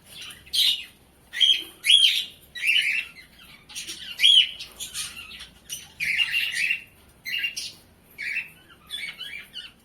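Small cage birds calling in a run of short, harsh chirps and squawks, about one or two a second at an uneven pace.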